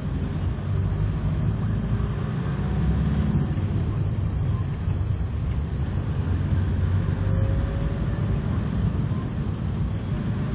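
Steady low rumble of a road vehicle's engine and tyres on a wet road, heard from inside the moving vehicle.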